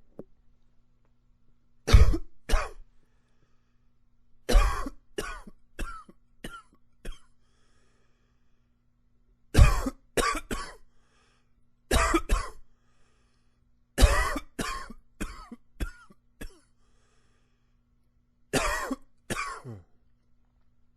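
A man coughing in six fits of two to five coughs each, with short quiet breaks between fits; the first cough of each fit is the loudest and the rest trail off.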